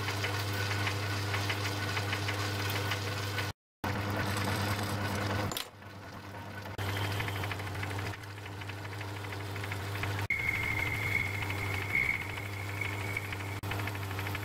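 A metal lathe running, turning a bar with a steady motor hum, while the tool cuts the metal. The sound breaks off abruptly several times. From about ten seconds in, a high steady whine is heard for about three seconds.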